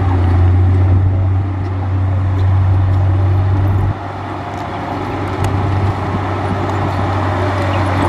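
Diesel engine of a heavy earthmoving machine running steadily with a deep, loud hum. It eases off abruptly about four seconds in, then slowly picks up again.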